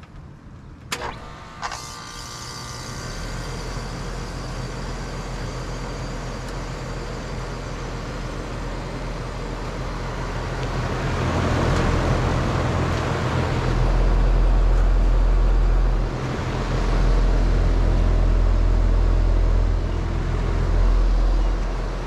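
Lennox Merit heat pump outdoor unit coming out of defrost: two sharp clicks about a second in, then the outdoor fan starts and runs with a rising rush of air over the compressor hum. From about halfway a heavy low rumble comes and goes in long stretches, the fan's discharge air blowing on the microphone.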